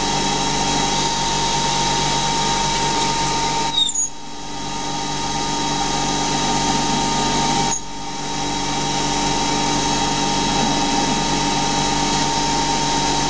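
Small CNC lathe running, its spindle turning a Delrin bar while a slot drill used as a boring bar cuts into the end: a steady machine whine. A high, falling squeal comes about four seconds in. The sound dips sharply twice, about four and eight seconds in, and builds back up each time.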